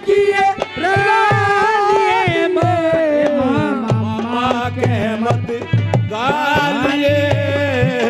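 Haryanvi folk music of the saang stage: a long held, wavering melody line that slides down to a lower note about halfway through, over a steady hand-drum beat.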